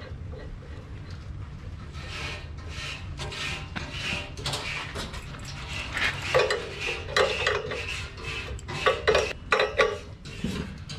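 Metal clinking and scraping as a brass pipe fitting is screwed into an air compressor pump head and tightened with pliers. Quiet handling comes first, then a quick run of sharp clinks in the second half.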